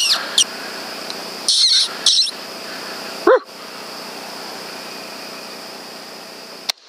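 Coyotes vocalizing: a few short, high yipping calls in the first two seconds, then a single loud bark a little past three seconds in, over a steady high-pitched hum.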